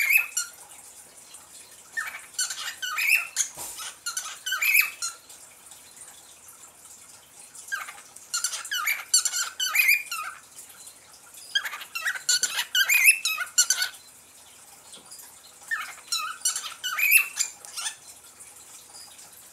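Pet parrot chirping and chattering in its cage: four bursts of quick, high notes, each lasting two or three seconds, with pauses of a few seconds between them.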